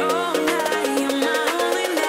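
Background music: a melody over quick, evenly repeating percussion.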